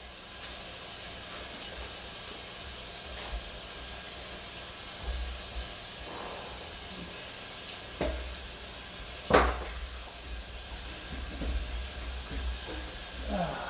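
Kitchen tap water running steadily into the sink while raw beef tips are rinsed under it, with two sharp knocks, the louder one about nine seconds in.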